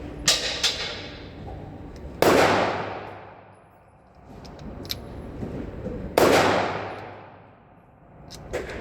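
Two loud gunshots about four seconds apart, each followed by a long echo that fades away. A couple of small clicks come shortly before the first.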